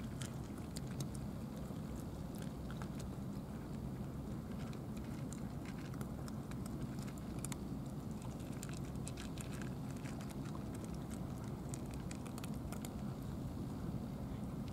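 Several cats eating from plastic trays: many small, irregular clicks of chewing and lapping throughout, over a steady low background rumble.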